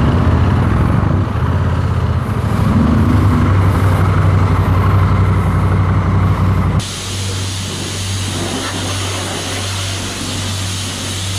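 Honda NT1100's parallel-twin engine running at low speed with a steady low hum. About seven seconds in it cuts to the steady hiss of a pressure-washer lance spraying, with a low hum underneath.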